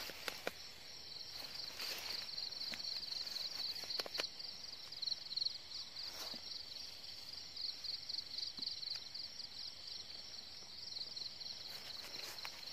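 A chorus of insects chirping in a steady, high, finely pulsing trill, with a few scattered rustles and steps in the grass.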